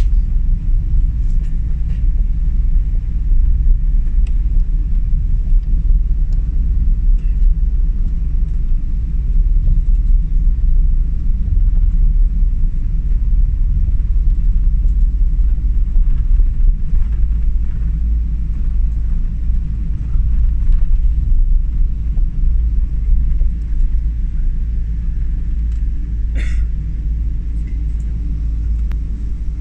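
Steady low rumble inside the cabin of a Boeing 777 taxiing onto the runway: engines and wheels heard through the fuselage. A single brief sharp noise near the end.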